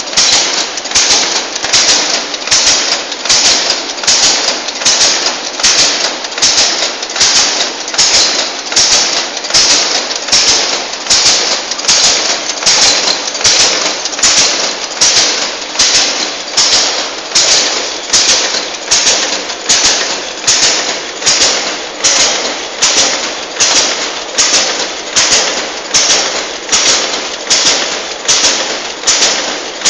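Savema SVM 32I packaging machine running in steady production, cycling with a regular rhythm of sharp, noisy strokes at about one and a half a second as its film is drawn off the printed roll.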